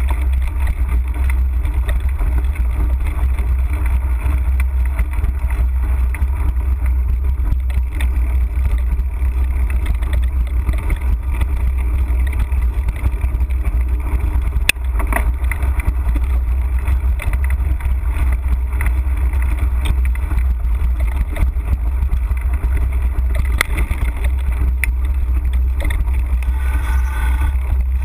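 Mountain bike rolling fast over a dirt singletrack, heard through a handlebar-mounted action camera: wind buffeting the microphone makes a steady low rumble, and now and then the bike knocks and rattles over bumps in the trail.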